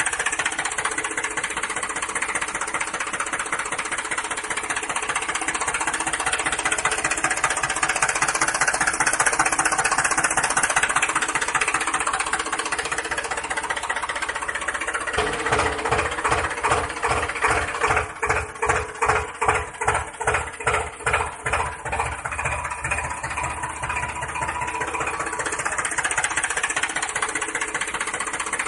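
A motor running with a steady buzzing drone. From about halfway through it turns into a heavy rhythmic chugging of about two to three beats a second, then settles back to a steady run near the end.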